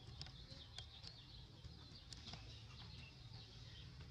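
Faint outdoor ambience: soft distant bird chirps over a low rumble, with a few short clicks scattered through it.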